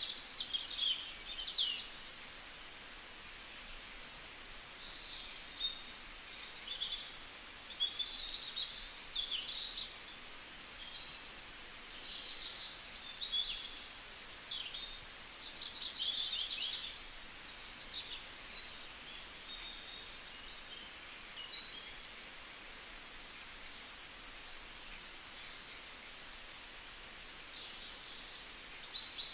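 Birds chirping in short, high, irregular calls over a steady hiss.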